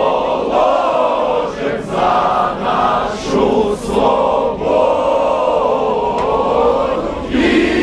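A large crowd singing an anthem together in unison, many voices holding long notes.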